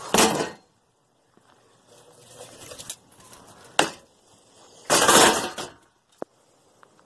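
Pieces of a broken metal folding chair dropped into a plastic trash bin: a sharp clank about four seconds in, a louder, longer clattering crash about five seconds in, then a short metallic ring.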